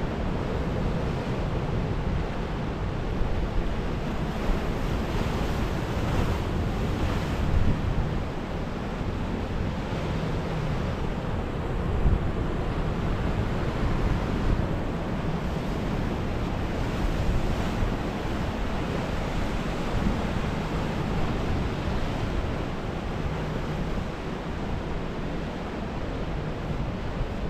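Ocean surf breaking and washing over the jetty rocks: a steady wash with a few louder surges, and wind rumbling on the microphone.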